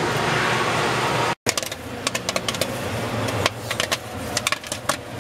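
Popcorn popping in a kettle popcorn machine: many sharp, irregular pops over the machine's steady low motor hum. They start about a second and a half in, after a steady rushing noise.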